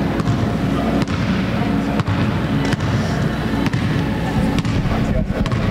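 Basketball bouncing on a hardwood gym floor about once a second, over a loud, steady low rumble in the hall.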